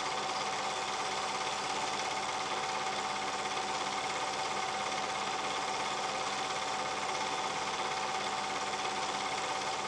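Cine film projector running: a steady, rapid mechanical clatter from the film-advance mechanism, with a constant tone under it.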